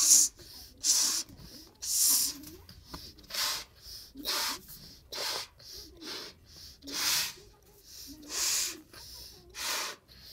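A child blowing up a latex balloon in quick, forceful breaths: a hissing puff about once a second, with quick breaths drawn in between.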